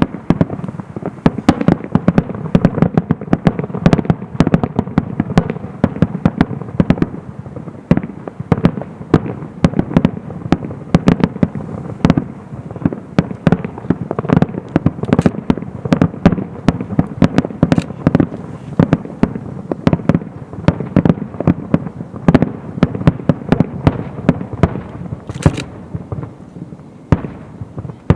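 Fireworks display: a dense, rapid barrage of aerial shell bursts and bangs, many per second, beginning abruptly and keeping up without a break.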